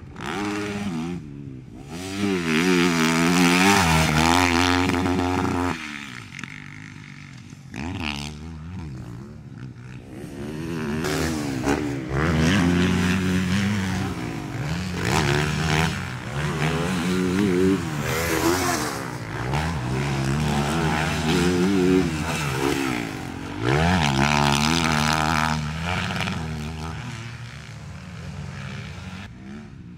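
Motocross dirt bike engine revving hard and backing off, again and again, as it is ridden through jumps and corners. The pitch climbs and drops many times.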